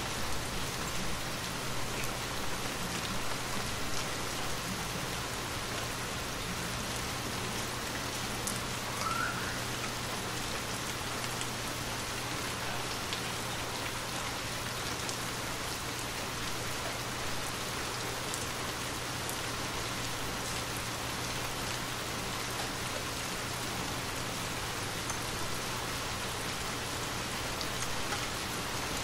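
Steady rain falling in an even hiss, with scattered individual drops ticking close by.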